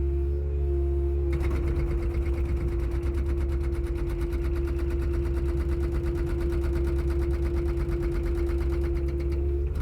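Hydraulic breaker on a Kubota mini excavator hammering in a rapid, even stream of blows over the steady drone of the machine's engine. The hammering starts about a second in and stops just before the end.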